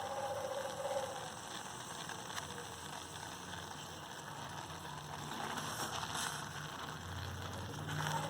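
Cauliflower-leaf paste sizzling in mustard oil in a pan as its water cooks off.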